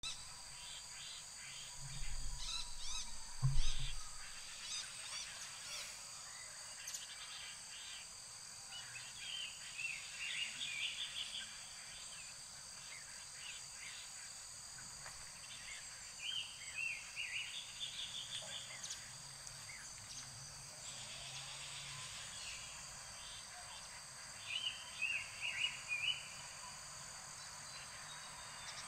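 Steady high-pitched insect drone with a songbird's short warbling phrases, heard three times. A loud low thump and rumble comes about three seconds in.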